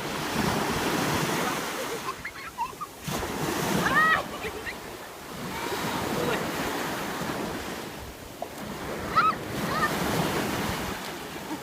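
Sea waves breaking and washing up the beach, the rush swelling and fading every few seconds, with wind buffeting the microphone. Short high-pitched cries cut through twice, about four and nine seconds in.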